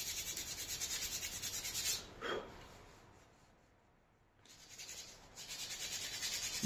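Coarse 60-grit sandpaper rubbed quickly back and forth over a dried wooden arrow shaft, smoothing down the spots where knots were cut off. The strokes stop for about two seconds in the middle, then start again.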